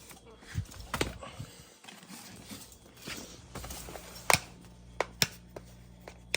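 Scattered sharp clicks and light knocks of hard objects being handled and set down, the loudest a little past the middle, with a faint low hum coming in about halfway.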